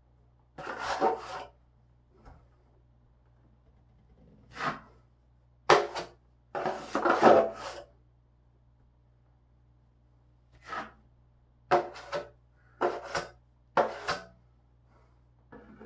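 Drywall knife scraping joint compound onto the patched wall in a series of short, irregular strokes, about ten in all, with pauses between them.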